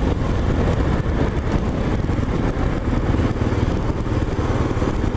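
Motorcycle engine running steadily while riding, heard from a camera mounted on the bike, mixed with wind rush and road noise.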